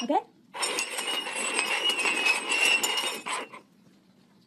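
Stainless steel cups sliding and clattering on a hard tabletop as they are shuffled, for about three seconds, then stopping.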